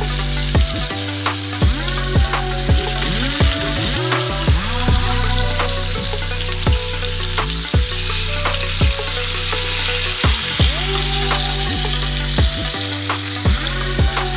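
Rohu (rui) fish steaks and head sizzling as they shallow-fry in hot oil in a pan, turned with a metal spatula. Background music with a steady beat plays over it.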